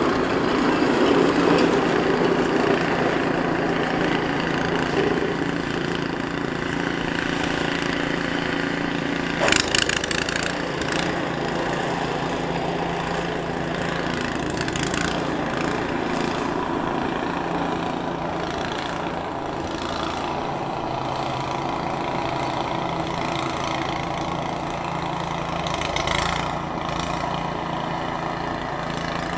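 Ram 3500 pickup truck carrying a plow blade and salt spreader, its engine running steadily as it drives slowly by, with a single sharp knock about nine and a half seconds in.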